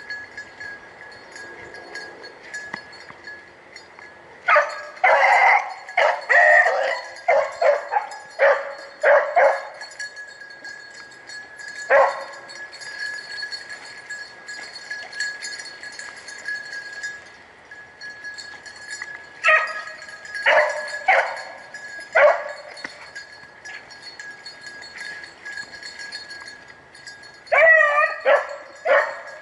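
Rabbit hounds baying in bursts while trailing a swamp rabbit: a run of barks from about four to ten seconds in, a single bark near twelve seconds, another cluster around twenty seconds, and more near the end.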